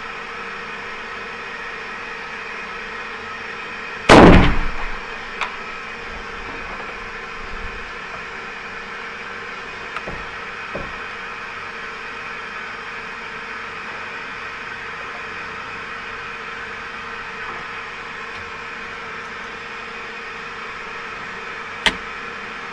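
A single shot from a Sharps .45-70 single-shot rifle about four seconds in, very loud and dying away within a second. A few light clicks follow, and a sharp metallic click near the end as the rifle's action is worked, all over a steady background hiss.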